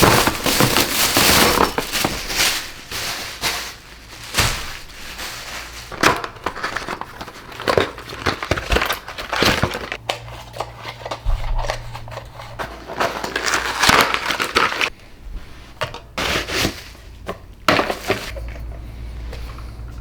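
Packaging being handled: crinkling, crumpling and rustling in uneven bursts, with sharp clicks and knocks.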